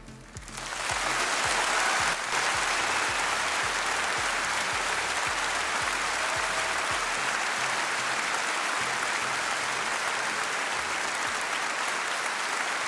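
Large audience applauding, swelling in over the first second and then holding steady.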